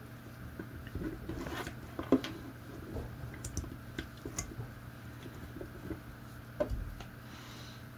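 Close handling noise of fingers working stranded wires into the terminal block of a Schuko plug insert: scattered small plastic clicks and rustles of cable and insulation.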